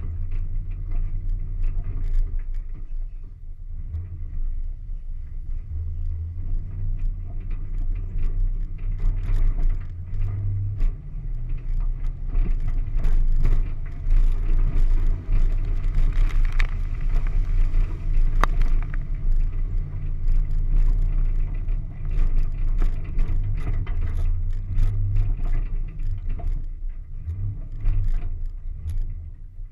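Engine of an off-road vehicle driving through a mud bog, with a deep rumble that rises and falls. Frequent small clicks and rattles from flung mud and debris striking the vehicle.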